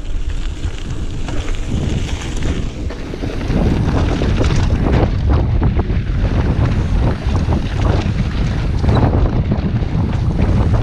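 Wind buffeting the camera microphone as a mountain bike rolls along a gravel road and then onto a rough dirt trail. From about three and a half seconds in it gets louder, with many short knocks and rattles from the bike over the bumpy trail.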